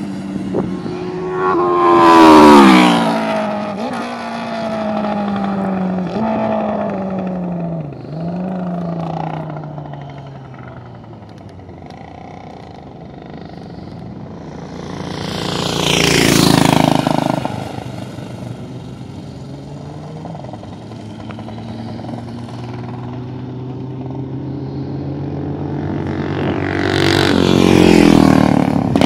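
Racing motorcycles passing at speed one after another. The first goes by about two seconds in and changes up through the gears as it pulls away, a second passes in the middle, and a third approaches near the end.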